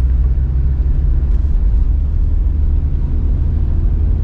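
UAZ Patriot driving along a snow-packed winter road: a steady, low rumble of engine and tyres.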